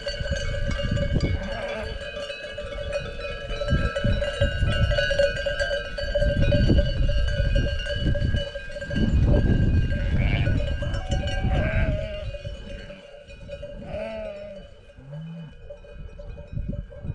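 Livestock bells on a moving flock of sheep and goats ringing continuously, with a few short bleats about ten, twelve and fourteen seconds in. The ringing grows fainter over the last few seconds as the flock moves off.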